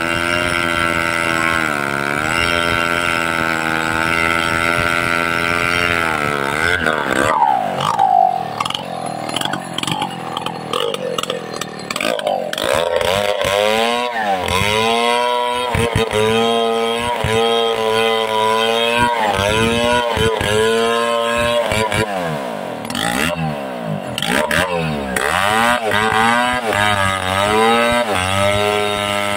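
Chainsaw cutting a large tree trunk: the engine runs at steady high revs for about six seconds, then its pitch repeatedly dips and climbs back every second or so as it works through the cut.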